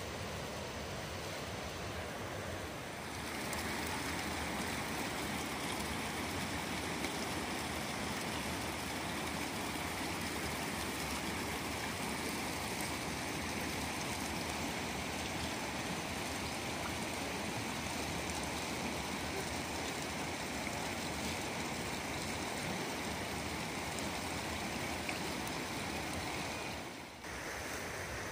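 Steady rushing of flowing water, dipping briefly about three seconds in and again near the end.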